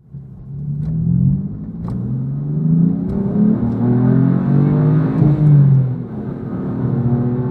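A car engine accelerating hard, its pitch climbing and dropping back several times as it goes up through the gears.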